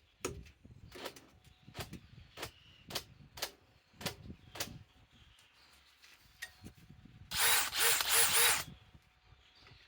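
DeWalt DCD805 cordless drill/driver running briefly, its speed surging up and down four times in about a second. Before it come sharp clicks about every 0.7 seconds.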